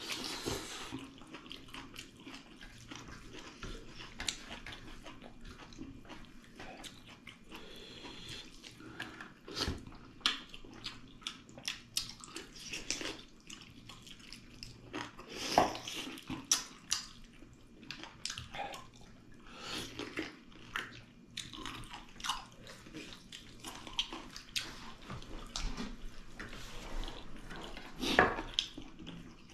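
Close-up eating sounds of two people eating pork leg with dal and rice by hand: wet chewing, lip smacks and sucking with a steady run of small clicks. A few louder smacks stand out, the loudest about halfway through and near the end.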